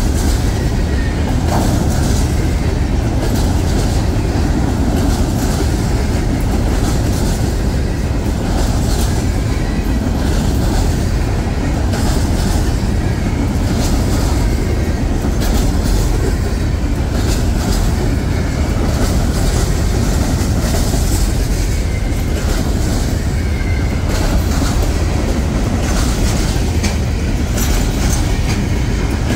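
Freight train of flatcars carrying trash containers rolling past close by: a steady, heavy rumble of steel wheels on rail, with many clicks as the wheels pass over rail joints.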